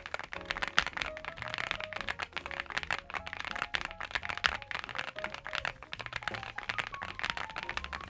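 Continuous typing on a NuPhy Gem80 80% mechanical keyboard built with an FR4 plate and silicone-socket mounting, with PBT double-shot mSA-profile keycaps: a dense, irregular stream of key clacks.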